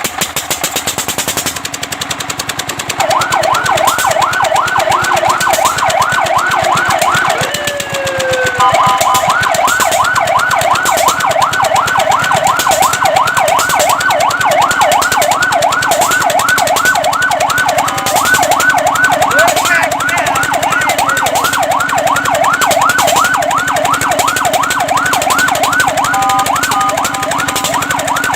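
Fire truck's electronic siren in fast yelp mode, rising and falling about three times a second, starting about three seconds in over the truck's running engine. About eight seconds in it breaks into a short falling tone and a few steady blips before the yelp resumes, and near the end it switches again briefly.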